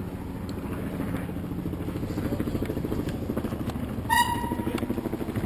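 A motorboat engine runs steadily nearby with a fast, even low throb. About four seconds in, a short high-pitched tone sounds for about half a second.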